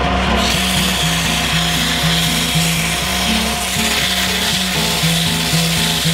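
Coarse 50-grit sandpaper rubbing on a Newfoundland birch spindle turning on a wood lathe: a steady hiss that starts about half a second in, over the lathe motor's hum. Background music plays alongside.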